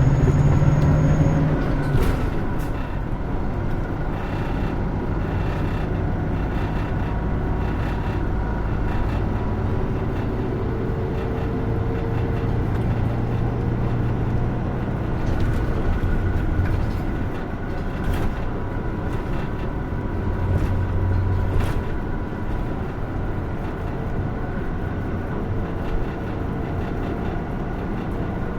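Interior running sound of a Hino Rainbow II diesel route bus on the move: steady engine drone and road noise, with the engine note dropping about two seconds in. A few sharp clicks or rattles come through at intervals.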